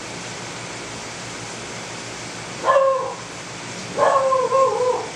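Two whining animal cries, a short one about halfway through and a longer one of about a second near the end that falls slightly in pitch, over the steady hiss of aquarium water and pump.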